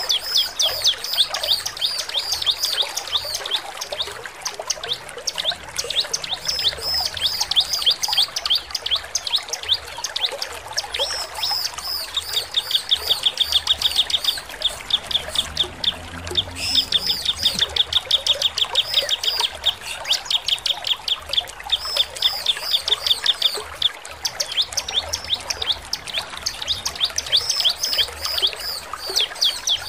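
Bar-winged prinia (ciblek) singing persistently: fast strings of high, sharp chirping notes, running into rapid trills about twelve seconds in and again from about seventeen to twenty-three seconds.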